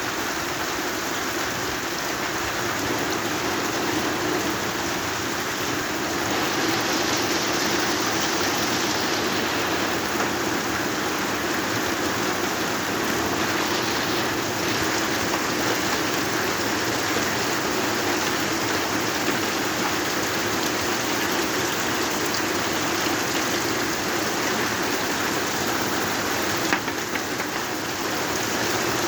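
Steady rain falling and pattering, with one brief sharp knock near the end.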